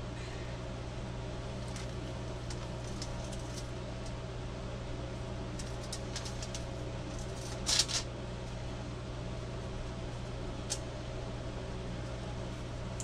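Steady low room hum, with faint rustling of an egg roll wrapper being rolled by hand on aluminium foil and a short, louder crinkle about eight seconds in.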